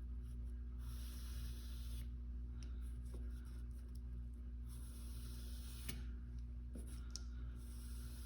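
Flat back of a steel single-bevel broadhead stroked on sandpaper over glass: soft, intermittent scratching strokes that flatten the back and remove the burr from the edge, over a steady low hum.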